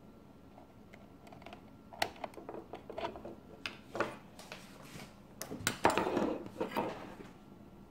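Handling noise: scattered clicks, knocks and light rattles of a small metal attenuator box and its cable connectors being moved and plugged in on a wooden desk, starting about two seconds in and busiest near the six-second mark.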